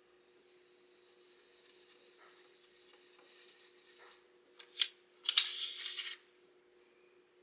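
Oval makeup brush used as an ink blending brush, rubbed over a plastic stencil on cardstock: a soft, steady brushing hiss, then two quick scratchy strokes and about a second of louder, brisk scrubbing a little past halfway.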